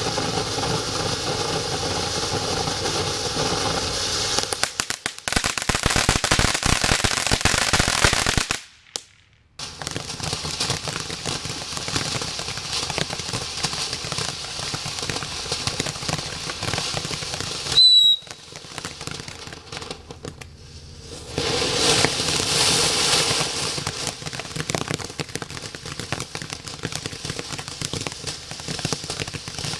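Consumer ground firework fountains spraying sparks: a continuous hiss laced with dense crackling. The sound drops out briefly twice, and a short high whistle cuts through near the middle.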